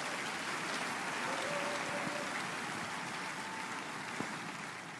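Congregation applauding, swelling at the start and tapering off toward the end.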